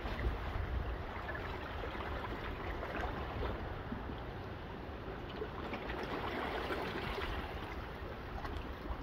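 Small waves lapping and trickling among coral rocks and sand at the water's edge, a steady wash of water with a low rumble of wind on the microphone.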